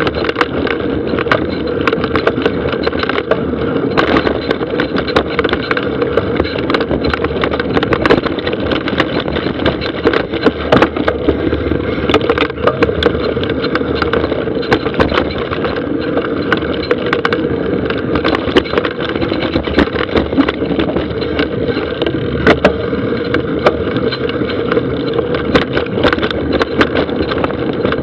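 Mountain bike rolling fast down a dry dirt forest trail: a steady rush of tyre and ride noise, broken by frequent sharp rattles and knocks from the bike over bumps.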